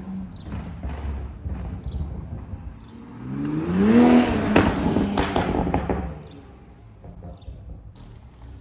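A car engine that swells up in pitch and loudness and then fades away, as a vehicle drives past, loudest about four seconds in, over a steady low rumble.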